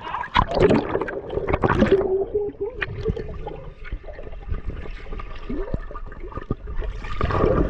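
Water splashing against a swimmer and an action camera at the surface, turning to muffled underwater gurgling and bubbling once the camera goes under about two seconds in, then splashing again as it breaks the surface near the end.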